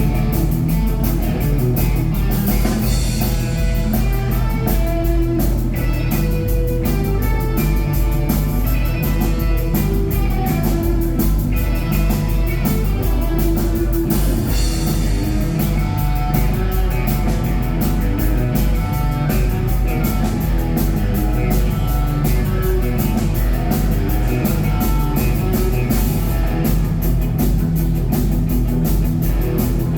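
Rock band playing live: guitar over a driving drum kit, with cymbal crashes swelling twice.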